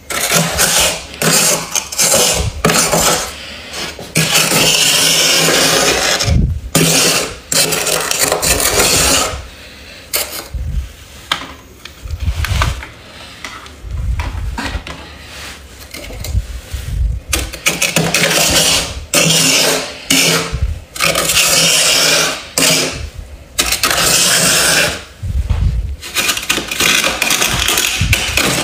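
A scraper scraping thick frost off the inside of a freezer, in repeated strokes of a second or two each, with a few dull knocks among them.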